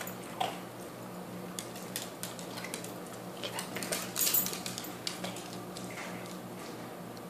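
A dog moving on a hardwood floor: scattered light clicks and taps of its claws, with a brief burst of jingling clatter about four seconds in, over a steady low hum.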